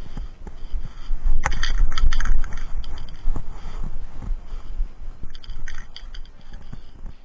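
Aerosol can of gray spray primer shaken, its mixing ball rattling inside in two bouts: a loud one about a second and a half in and a shorter one after five seconds. A low handling rumble runs underneath.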